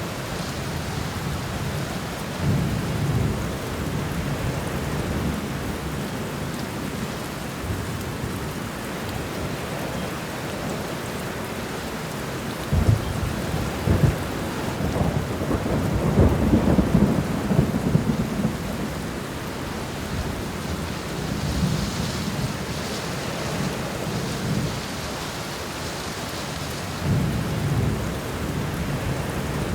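Steady rain falling on an apartment window during a thunderstorm. Low thunder rumbles about three seconds in; two sharp cracks near the middle lead into the longest, loudest rumble, and fainter rumbles follow later.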